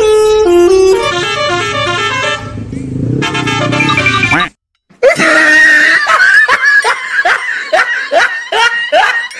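A musical multi-tone bus horn of the Indonesian 'telolet' kind over background music: a stepping horn melody, a sudden brief cut-out about halfway, then a rapid run of short falling toots, about three a second.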